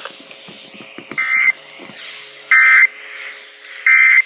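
Three short buzzing data bursts of the Emergency Alert System end-of-message code (the digital SAME tones) from a weather radio's speaker. Each lasts about a third of a second, with about a second and a quarter between them, marking the end of the required monthly test.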